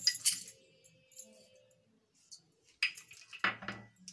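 Clinking of crockery: a plastic measuring spoon knocks against a ceramic mug as sugar is tipped in, with a short ringing clink at the start and two more knocks near the end.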